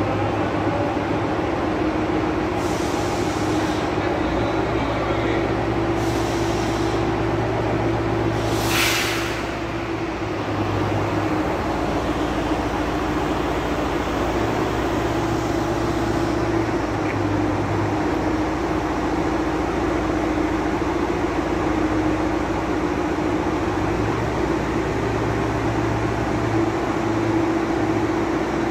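Truck-mounted mobile crane's engine running steadily under load, powering the hydraulics as it hoists an overhead crane girder, with a brief hiss about nine seconds in.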